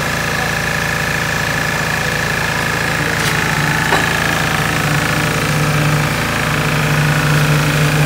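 Engine of the concrete-pouring machinery running steadily at an even pitch, with a steady high whine above the drone. A faint click about four seconds in.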